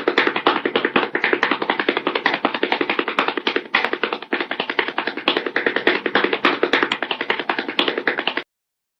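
Fast, busy music made of rapid tapping or strumming strokes, many a second, that cuts off suddenly near the end.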